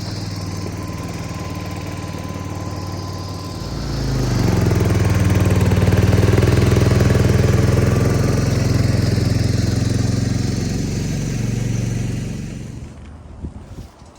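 Chainsaw engine idling, then held at higher speed for about eight seconds, then dropping back and shutting off near the end.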